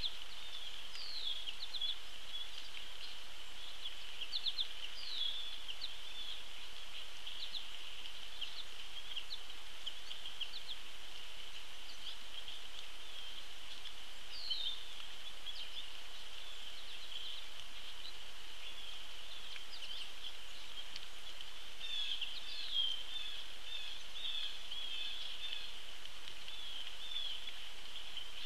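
Outdoor pond ambience: a steady high-pitched chorus with short chirps scattered over it, the chirps coming thicker near the end.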